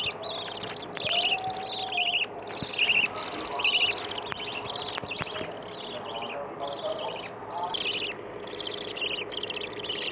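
Lovebird chicks cheeping: a rapid, continuous string of short, shrill, buzzy chirps, repeated over and over, typical of chicks begging to be fed.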